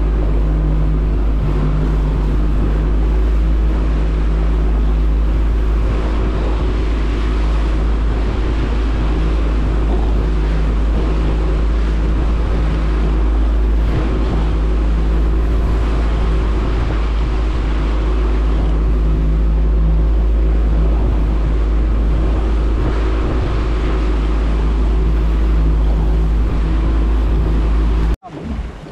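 Small fishing boat's outboard motor running steadily at trolling speed, with wind and water noise over it. The sound drops away abruptly near the end.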